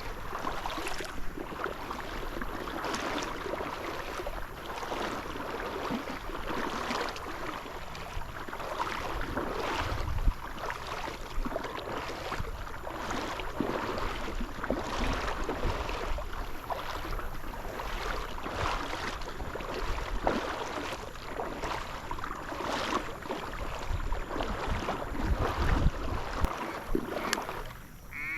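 Steps wading through shallow marsh water and reeds, a swish or splash about every second, with low thumps and some wind on the microphone.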